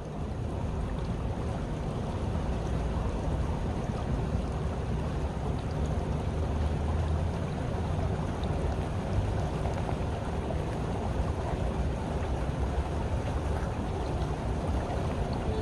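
Small stream flowing, a steady trickling rush of water.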